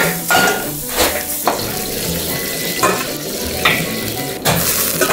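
Fried rice stir-frying in a hot wok: a steady sizzle, with a metal ladle scraping and knocking against the wok about once a second.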